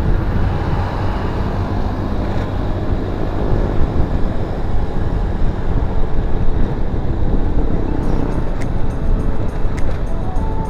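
Wind buffeting the microphone of a camera on a moving Honda Vario 110 carburettor scooter, over the scooter's engine and tyre noise at road speed. The rumble is loud and steady.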